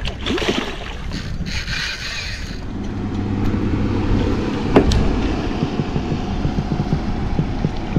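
A short hissing rush, then from about three seconds in a steady low motor hum, with one sharp click near the middle.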